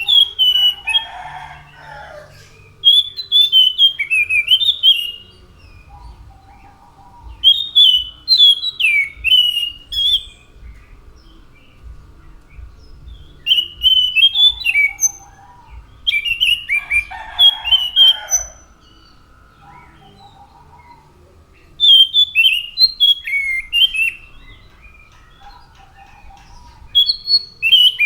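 An anis macan thrush singing in repeated short phrases of clear, quickly sliding whistled notes, each phrase lasting a second or two with pauses of a few seconds between them.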